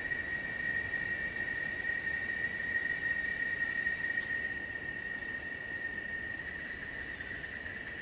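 Insects droning in a steady chorus in tropical forest: one continuous high whine with a fainter, even hiss far above it.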